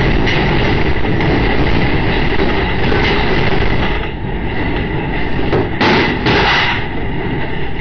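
A house shaking in an earthquake: a loud continuous rumble and noise of the building that eases about four seconds in, with two short louder bursts around six seconds.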